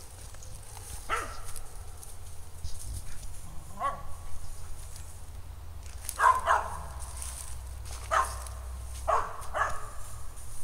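Squirrel dog barking at a tree, treeing, a sign that he thinks a squirrel is up it. About seven short barks, loosely spaced, some in quick pairs, the loudest about six seconds in.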